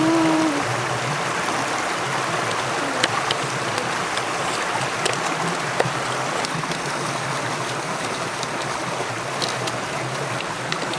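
Stream water running steadily over rocks, with a few light knocks.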